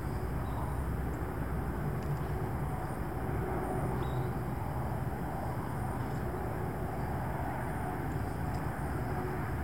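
Wind buffeting the microphone: a steady, low rumbling noise that swells and eases slightly.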